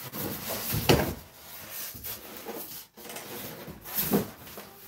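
Cardboard box and foam packing rubbing and scraping as a serger is pulled out of its box, with two louder knocks, about a second in and near the end.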